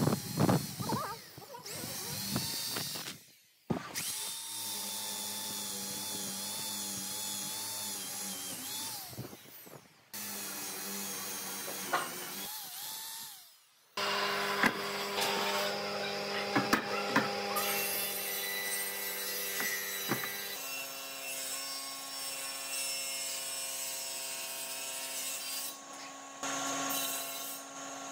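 Electric drill boring into a pine board with a countersink bit, winding down within the first second or two. After that, across several cuts, a steady hum with occasional sharp knocks of wood being handled.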